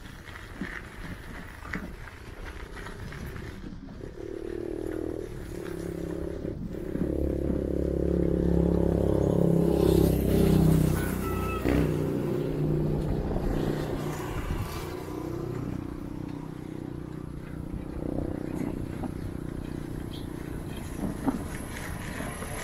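A motor vehicle's engine approaches and passes, growing louder for several seconds and loudest near the middle, then fading away, heard over the hiss and rattle of the bicycle ride.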